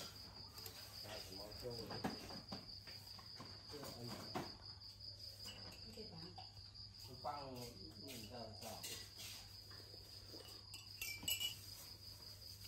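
Insects trilling steadily in the background: one unbroken high trill. Faint voices come and go, and there are a few light clicks, most of them near the end.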